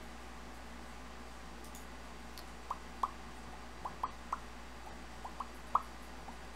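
Light, short clicks at uneven intervals, about ten in all starting just under three seconds in, from someone working at a computer, over a faint steady low hum.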